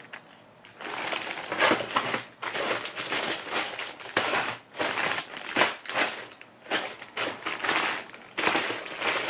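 Clear plastic bags holding model-kit parts crinkling and rustling as they are handled, in irregular bursts starting about a second in.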